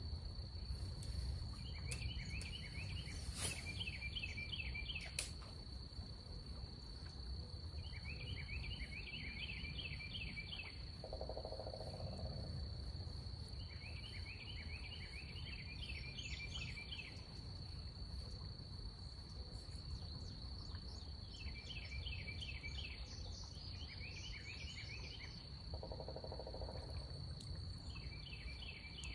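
Outdoor riverside ambience: a steady high insect drone over a low background rumble, broken every few seconds by short runs of rapid high chirps, with a short lower buzzing call twice, about 11 seconds in and near the end.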